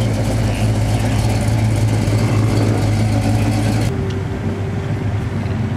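Classic Dodge Charger's engine running with a steady low rumble as the car rolls slowly past. About four seconds in, the sound cuts abruptly to a quieter, steady engine hum with a faint level whine.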